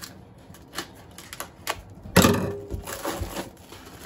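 Packs of raw chicken wings being opened and emptied into a metal bowl: plastic wrap crinkling and crackling among scattered clicks, loudest for about a second starting two seconds in.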